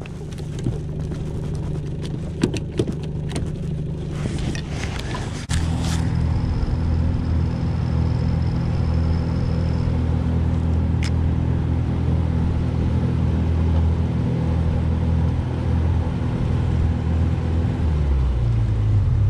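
Boat motor idling with a few clicks and knocks over it, then throttled up about five and a half seconds in to a louder, steady run, easing back near the end.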